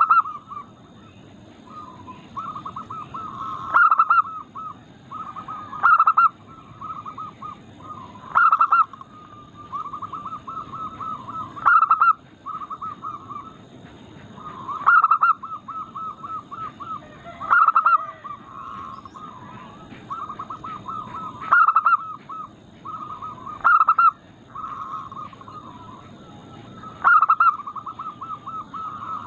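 Zebra dove (perkutut) singing: long runs of quick, soft repeated coos at a steady pitch, broken every two to four seconds by a louder accented note.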